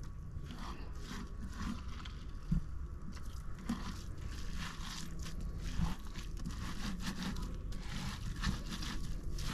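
Pomegranate arils being crushed and kneaded by hand in a metal pot to press out their juice, a dense, irregular crackling with wet squishing.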